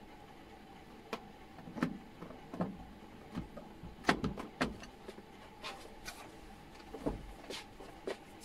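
Irregular light knocks and clicks of hands handling cables and parts inside an opened LED TV, about ten in all, the loudest about four seconds in, over a faint steady hum.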